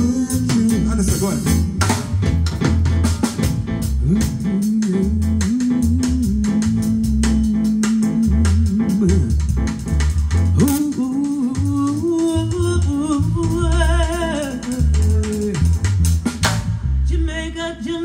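Live Caribbean soul band playing: a woman sings long held notes, wavering with vibrato later on, over drums and bass.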